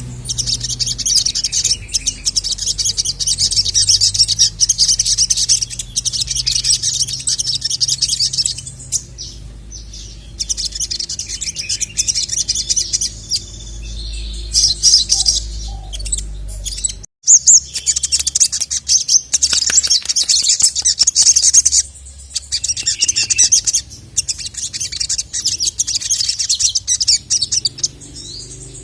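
Sogon (sogok ontong) bird singing a rapid, high chattering song in long bouts with short breaks. A low hum underneath stops abruptly about 17 seconds in.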